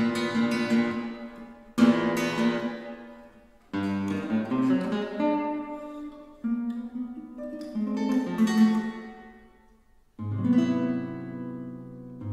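Solo nylon-string classical guitar: sharply plucked chords and phrases that ring and die away, about four times, with near pauses between them.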